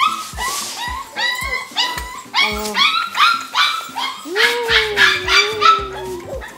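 Small dogs yapping in a quick, repeated run over background music with a steady beat.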